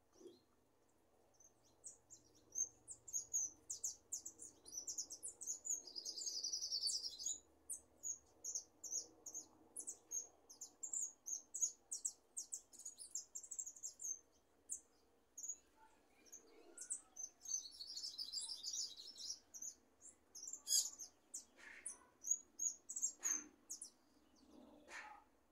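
Caged jilguero finch singing in snatches: strings of short, high chirps, with a denser trill about six seconds in and again about seventeen seconds in. A few sharp clicks sound near the end.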